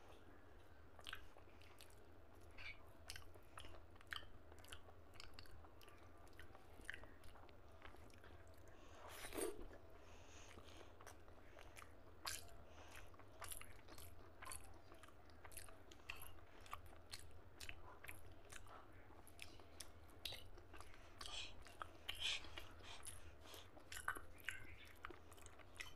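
Faint, close eating sounds: chewing of rice and mutton fat curry eaten by hand, with irregular wet mouth clicks and smacks. One louder sound comes about nine seconds in.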